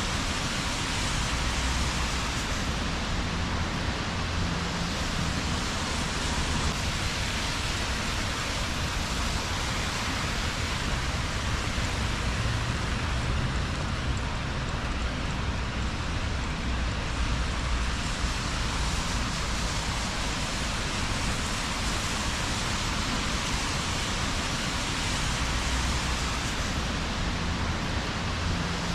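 Steady rain falling on wet city streets, an even hiss with a low rumble underneath.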